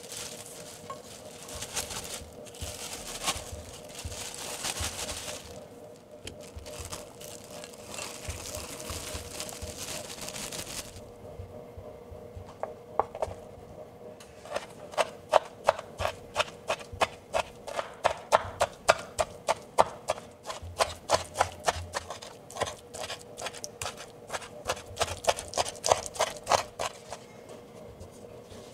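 A kitchen knife chopping raisins on a bamboo cutting board: rapid, repeated sharp knocks, about three or four a second, starting about twelve seconds in and running until near the end. Before the chopping there is a crackling, rustling noise.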